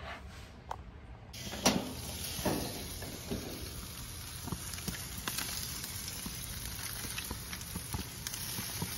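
Jerk chicken sizzling on a grill, a steady hiss that starts abruptly about a second in, with a few clicks and knocks over it. The loudest knock comes just after the sizzle starts.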